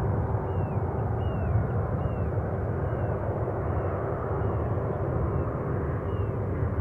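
Jet airliner engines rumbling steadily at a distance, a low even roar with a faint steady whine in it. Faint short high chirps repeat a little under a second apart over it.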